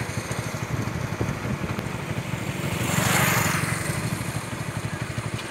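Motorcycle engine running with a rapid low pulsing beat, swelling to its loudest about three seconds in as it passes close, then easing off.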